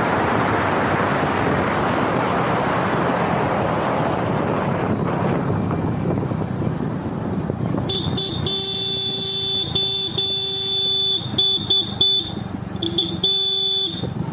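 A steady rushing noise of road travel, then from about eight seconds in a vehicle horn sounding in a string of honks, some held for a second or more and some short.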